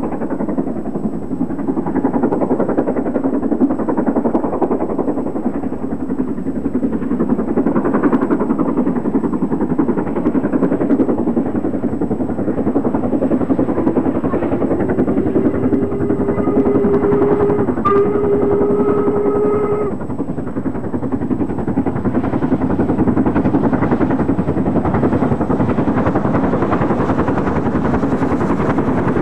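Steam locomotive Duchess of Hamilton, a four-cylinder LMS Pacific, working hard up a gradient, its exhaust beating in a dense, steady rush. About halfway through its whistle sounds one long, deep blast, briefly broken just before the end, lasting some five seconds.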